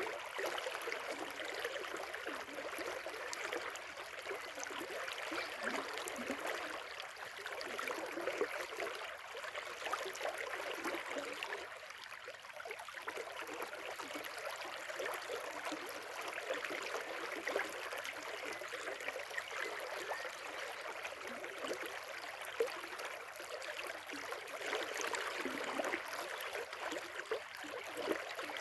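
River water flowing, a steady babbling rush with small splashy flickers.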